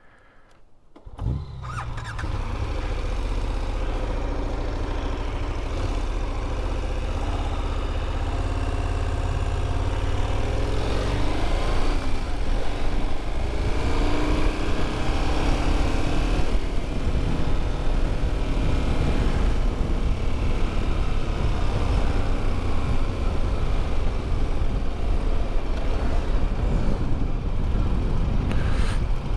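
KTM 1290 Super Adventure S's V-twin engine starting about a second in and idling, then pulling away, its revs rising and falling through the gears. A steady rush of wind builds as the bike gets up to road speed.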